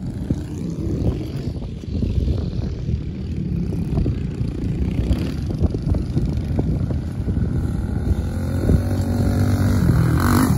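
Kawasaki KLX110 pit bikes' small single-cylinder four-stroke engines running as they ride around a dirt track. The sound gets louder toward the end as one bike rides past close by.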